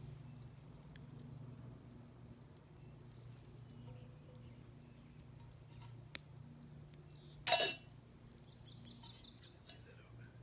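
Faint crackling and ticking of a campfire cooking breakfast, with a single sharp click about six seconds in and a louder short clink of metal cookware about seven and a half seconds in.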